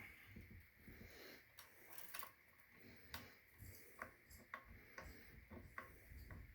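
Faint, irregular small clicks and light taps, about a dozen in all: hands handling small hardware and a hex key on an electric guitar while fitting a detuner.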